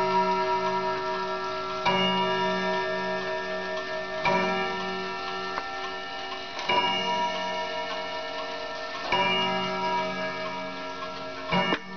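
Pendulum clock striking twelve: slow single strokes about two and a half seconds apart, five in all, each ringing on with a wavering hum into the next. Clocks tick underneath.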